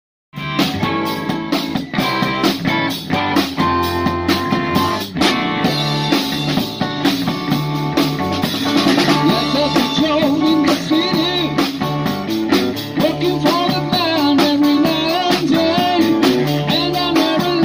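A live blues band playing: a drum kit keeping a steady beat under electric guitars, starting a fraction of a second in.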